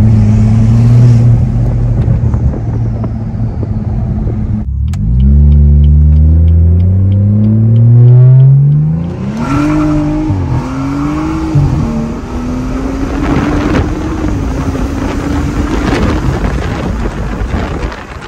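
BMW 440i's turbocharged 3.0-litre B58 inline-six, with a catless downpipe, heard from inside the cabin under a hard full-throttle pull. It holds a steady note, breaks off about four and a half seconds in, then rises in pitch through first gear. Quick shifts drop the pitch between about nine and twelve seconds, then it climbs slowly again in a higher gear and eases off near the end.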